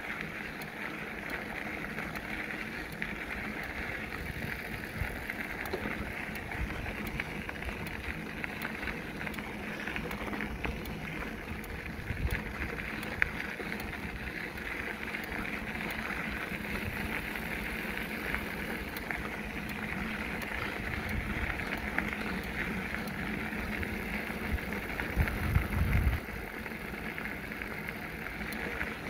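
Bicycle riding along a trail: a steady hiss of tyre and wind noise with a low rumble under it, and a brief louder rumble near the end.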